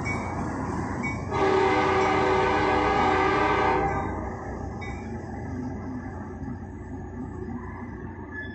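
Norfolk Southern GP-60 locomotive's air horn sounds one long blast of about two and a half seconds, several notes at once, from the head of the departing train. Under it runs the rolling noise of the train's wheels on the rails, which fades as the train moves off.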